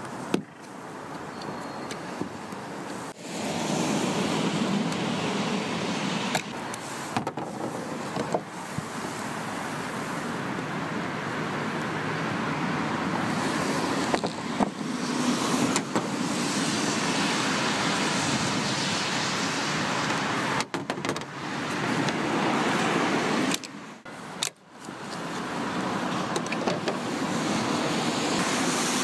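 Steady noise of road traffic, swelling and fading over several seconds as vehicles pass, with a few light clicks from a plastic wiper-blade clip being handled. The sound cuts out abruptly several times.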